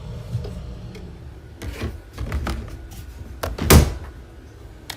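Knocks and clicks from the puppy incubator being handled, ending in a sharp door-like clack about three-quarters of the way through, over the low steady hum of its emergency cooling fan.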